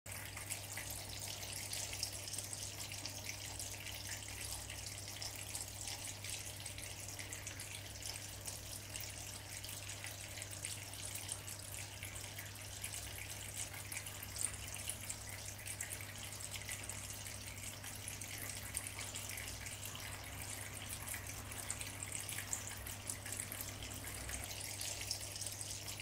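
Small tabletop fountain's stream of water trickling and splashing steadily into a pebble-filled basin, faint, over a steady low hum.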